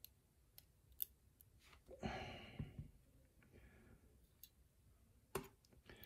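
Near silence broken by a few faint clicks of steel tweezers against the brass lock plug and its pins as a pin stack is picked out of a chamber; the two clearest clicks come about a second in and near the end.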